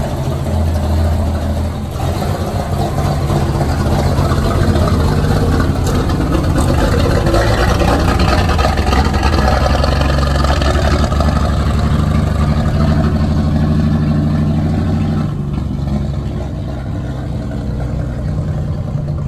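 1956 FWD fire truck's engine running as the truck pulls out and drives off at low speed. It runs steady and loud through the middle, then eases off over the last few seconds as the truck moves away.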